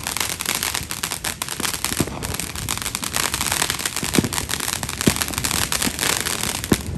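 Fireworks crackling in a fast, continuous string of small pops, with a few sharper bangs standing out near the end.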